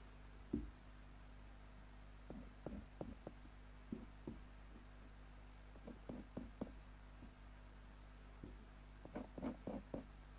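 Faint light knocks and taps, a sharper one about half a second in and then small clusters of them, over a steady low electrical hum.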